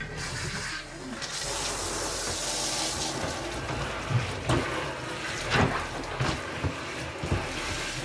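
Water spraying from a handheld shower head into the wash tub of a portable twin-tub washing machine, filling it for a rinse cycle. The water runs steadily, with a few light knocks in the second half.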